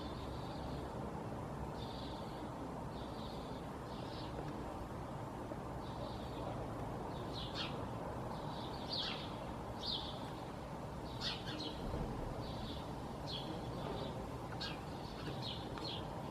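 Small birds chirping: short high calls repeating every second or so, growing busier in the second half, over a steady low background rumble.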